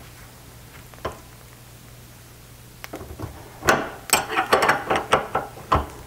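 Metal clinks of a wrench working the screw of a roller-chain breaker clamped in a bench vise, pressing a pin out of a #35 chain link: one click about a second in, then a quick run of sharp clinks in the second half.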